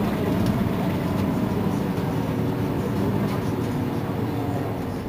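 Mercedes-Benz Citaro C2 city bus idling at a stop, its engine running steadily.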